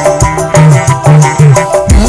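Kecimol music, the Sasak street-band style of Lombok, played loud: a fast, even drum beat under melody lines, with a heavy hit near the end.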